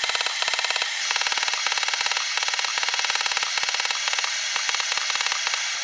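Hand hammer striking a glowing steel-cable billet on an anvil in a rapid run of ringing blows, several a second: forge welding the strands of a cable Damascus billet together.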